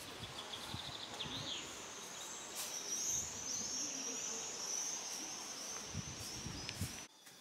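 Outdoor summer ambience: a short high trill about a second in, then a continuous high, wavering chirping over a light background hiss. It cuts off abruptly near the end.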